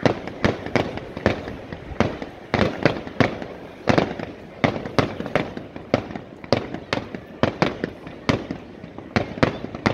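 Aerial firework shells bursting in quick, irregular succession, about two sharp bangs a second, each trailing off briefly.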